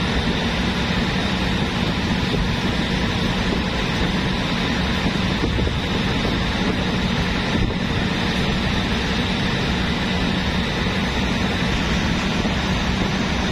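Steady drone of a boat's engine running, with water from a deck hose spraying onto the deck.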